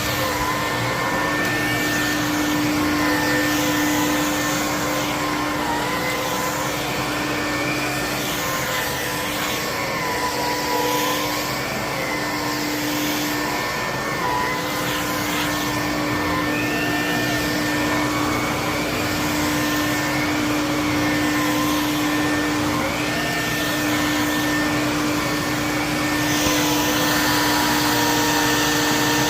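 Electrolux vacuum cleaner running continuously: a steady rush of air with a motor whine that wavers slightly in pitch.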